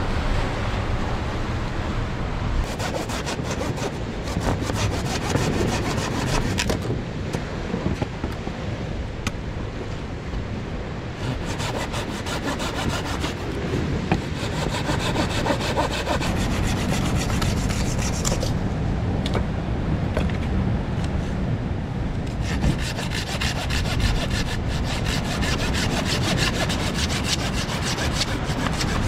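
Hand saw cutting wood in long runs of rapid back-and-forth strokes, stopping briefly between runs.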